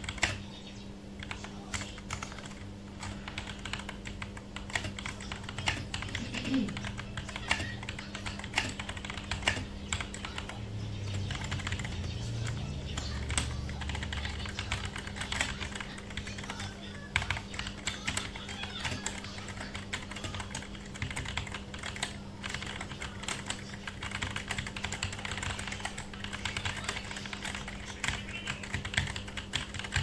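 Typing on a mechanical keyboard fitted with Akko Cream Yellow V3 linear switches (50 g): a continuous, uneven run of keystroke clacks over a steady low hum.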